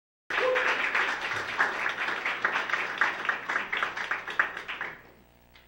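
Audience applauding, starting abruptly and dying away about five seconds in.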